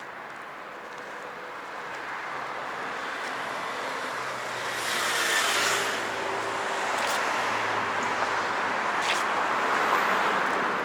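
City street traffic: vehicles passing, the noise building up, with the loudest one going by about five seconds in.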